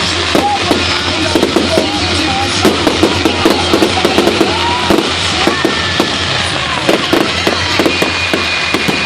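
Fireworks display: a dense, continuous run of bangs and crackles, with music playing throughout.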